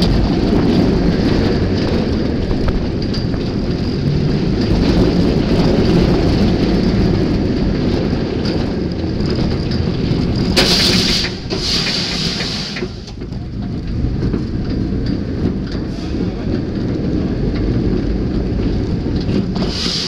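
Incredible Hulk steel roller coaster train running along its track, a steady rumble with wind rushing over the microphone. About halfway through, a loud hiss lasts a couple of seconds, and after it the running noise is a little quieter.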